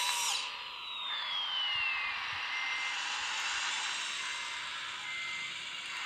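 Electric motors and gearing of a radio-controlled Liebherr LR 632 track loader model whining as it works. The whine falls in pitch over the first two seconds or so, then settles into a steady whir as the loader crawls forward.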